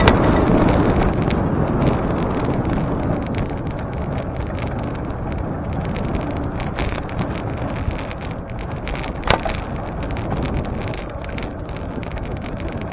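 Wind rushing and buffeting over the microphone on a moving bicycle, with a steady rumble of tyres on the road underneath. A single sharp click comes about nine seconds in.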